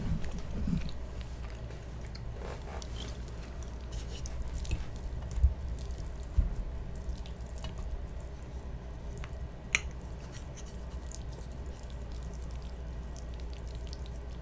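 Close-miked wet chewing and mouth sounds, with small clicks and squishes of a fork and spoon twirling sauce-coated spaghetti. Two soft knocks come about halfway through.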